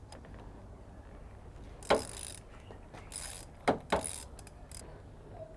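A ratchet turning a 16mm spark plug socket to loosen a spark plug: a few short ratcheting strokes, with a sharp click about two seconds in and another near four seconds.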